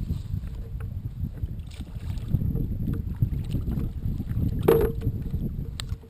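Water lapping around a Tarpon sit-on-top kayak, with a low rumble of wind on the microphone. There is one sharp knock against the boat a little under five seconds in.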